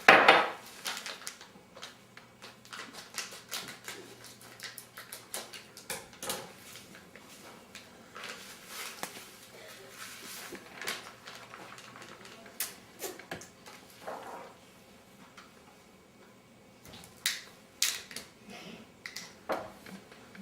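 Utensil clicking and tapping against a cup while batter is stirred, irregular strokes with a loud knock at the start and a few sharp clicks near the end.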